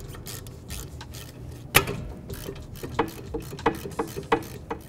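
Ratchet turning a 7 mm Allen socket to loosen a brake caliper slider pin: short runs of pawl clicking and rasping, with about five sharper clicks in the second half.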